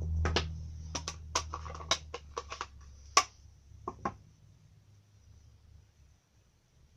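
A run of about a dozen light clicks and taps over the first four seconds: a clear photopolymer stamp on its acrylic block being handled and tapped onto an ink pad.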